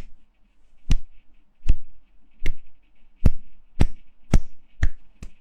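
About eight sharp, crisp hand claps, coming a little faster toward the end.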